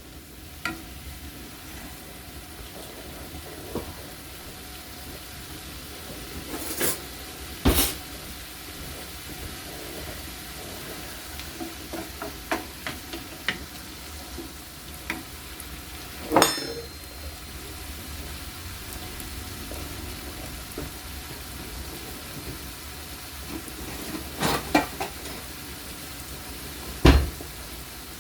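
Chopped onions and garlic sizzling in oil in an enamel skillet, a steady hiss. A utensil knocks and clinks against the pan now and then as they are stirred, the loudest knock near the end.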